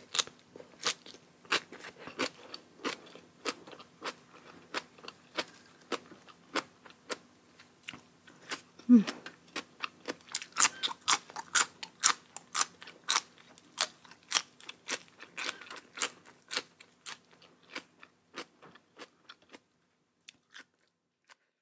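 Close-miked chewing and crunching of mouthfuls of spicy papaya salad with raw shrimp and crisp raw vegetables, about two to three crunches a second, thinning out and stopping shortly before the end. A short low falling note comes with the loudest crunch about nine seconds in, over a faint steady hum.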